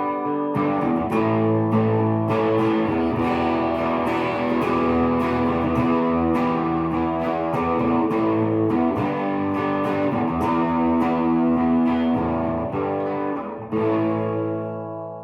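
1960s Hofner Verithin thinline electric guitar being strummed and picked in a run of ringing chords. A last chord is struck near the end and left to fade.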